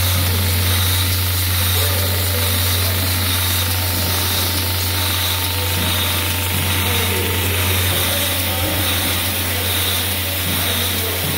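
Automatic syringe assembly machine running continuously, a steady low hum with a constant hiss of machinery over it.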